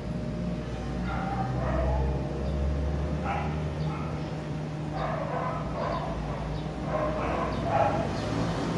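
A dog barking in several short bouts, with a low rumble underneath about two seconds in.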